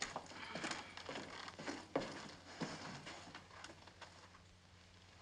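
Footsteps on a hard floor, a series of irregular knocks about every half second that fade out after about four seconds.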